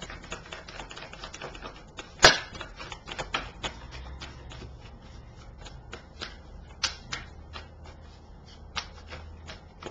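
Tarot deck being shuffled by hand: an irregular run of small card clicks and flicks, with one sharp snap about two seconds in.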